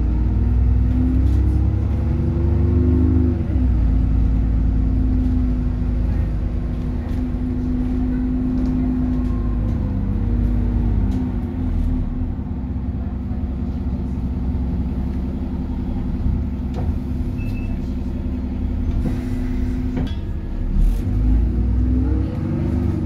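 Alexander Dennis Trident 2/Enviro 400 double-decker bus's Cummins diesel engine and transmission heard from inside the saloon while the bus is under way: a steady low rumble with a whine that climbs in pitch in the first few seconds, falls away about eleven seconds in, and climbs again near the end as the bus speeds up and slows. Light rattles from the bus interior sound now and then.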